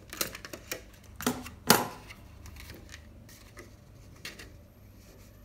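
Handheld stapler clacking as it is squeezed to drive staples through a plate, a quick run of sharp clicks with the loudest a little under two seconds in. A few fainter taps and clicks of handling follow.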